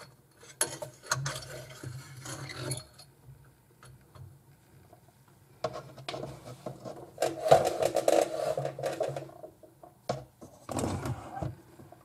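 Metal drain snake scraping and rattling inside an old, partly clogged sink drain pipe. It comes in short scrapes and clicks, with a louder stretch of scraping about six to nine seconds in.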